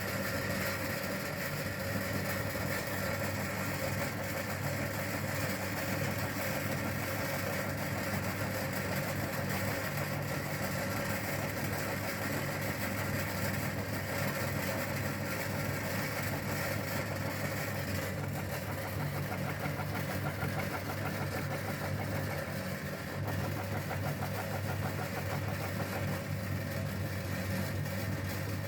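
Meat grinder's motor running steadily as it grinds soap, an even hum with no break.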